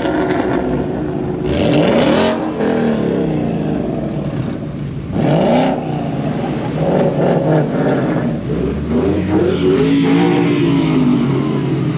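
A stream of Ford Mustangs driving past, several engines revving up and down at once with overlapping rising and falling notes. Two sharp, louder bursts stand out, about two seconds and five and a half seconds in.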